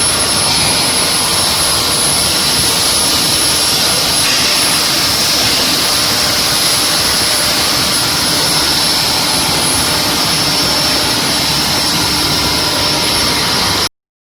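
Induction quenching and tempering line for threaded rebar running: a steady, loud hiss with a high-pitched whine held over it, cutting off suddenly near the end.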